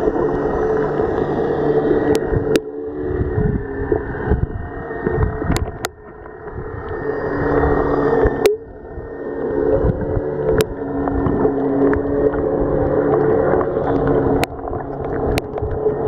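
Muffled boat engine drone heard underwater, a steady hum carried through the water, with scattered sharp clicks.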